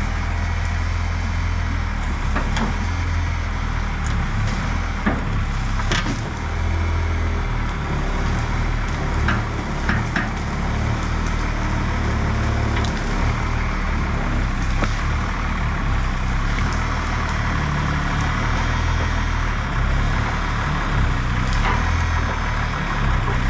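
The Oshkosh plow truck's Cummins 6BT inline-six diesel runs steadily as the truck drives slowly toward the camera. Scattered sharp cracks of wood and brush breaking under the truck are heard over the engine.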